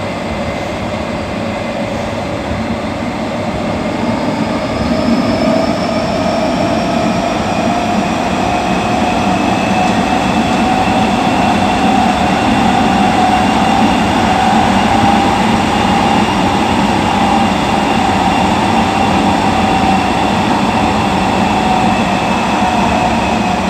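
Interior running noise of a Nagoya Municipal Subway 6000 series car with its original Toshiba GTO-VVVF traction equipment: the inverter and traction-motor whine rises in pitch through the first half as the train picks up speed, then holds steady, over the wheel and rail rumble. The sound grows louder a few seconds in.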